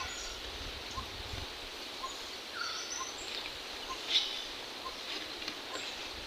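Outdoor forest ambience: a steady background hiss with a few short bird chirps, and a faint pip repeating about once a second.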